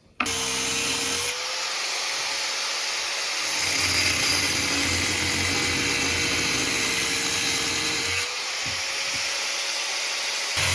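Power tool cutting through the new cast iron toilet flange to trim off a piece, a steady hissing cut with a faint motor tone that wavers slightly in pitch; the metal gets hot from the cut.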